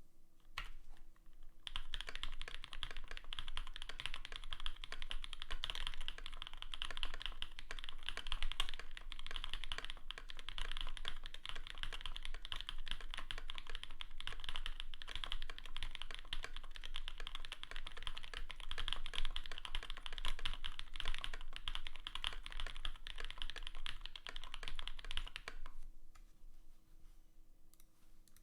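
Fast continuous typing on a Primus75 custom mechanical keyboard with lubed Everglide Dark Jade linear switches, an aluminium plate and GMK keycaps: a dense stream of key clacks. A couple of single keystrokes come first, then steady typing starts about two seconds in and stops a few seconds before the end.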